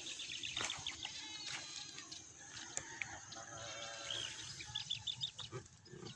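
Outdoor farm ambience: small birds chirping over and over, with a drawn-out call from a distant animal about a second in and again past the middle.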